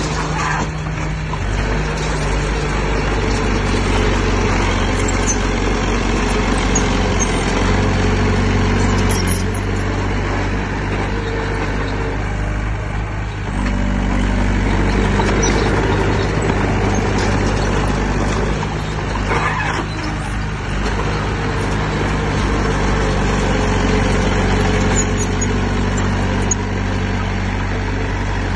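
Heavy diesel engine of earthmoving equipment running hard, its engine note shifting with load. It drops briefly about halfway through, then picks back up, and eases again a little later.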